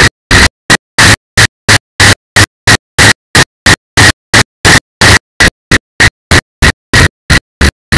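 Loud, distorted rush of wind and road noise from an engineless gravity-racing kart running downhill at speed. A recording fault chops it into bursts about three times a second, with dead silence between.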